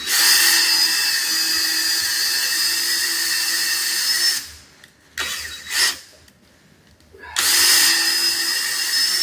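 Power drill running in two long steady bursts with a short blip between them, working on a seized broken bolt: drilling it out to get a bolt extractor to bite.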